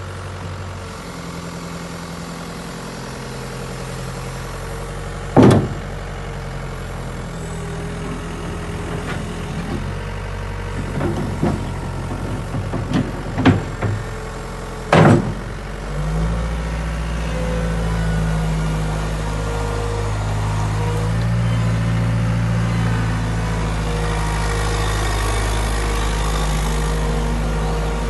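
Caterpillar 242B3 skid steer's diesel engine running, punctuated by sharp loud clunks: one about five seconds in, a cluster of knocks a few seconds later and another loud bang about fifteen seconds in. Then the engine runs louder and heavier for the rest of the time.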